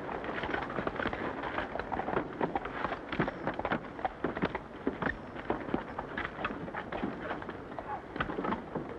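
Irregular footsteps and boot knocks on a wooden boardwalk, several men walking, over the steady hiss of an old film soundtrack.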